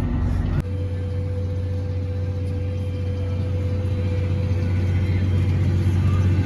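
Tractor engine running steadily: a low drone with a faint steady whine above it. The sound changes abruptly about half a second in, and the engine grows a little louder toward the end.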